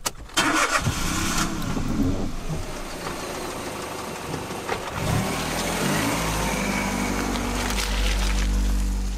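Car engine cranked and started, then running and building in revs as the car pulls away over loose dirt, loudest near the end.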